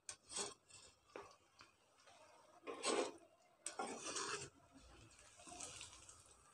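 Wire spider skimmer scraping and clinking against a pan as chicken pieces are stirred and lifted out of hot frying oil. There are several short scrapes, the loudest about three seconds in and a longer one around four seconds in, over a faint sizzle of the oil.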